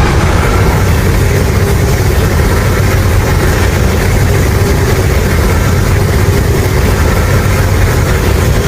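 Godzilla (2014) monster sound effect: a loud, steady low rumble with no break or change in pitch.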